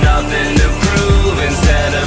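Music with a steady kick-drum beat about two beats a second.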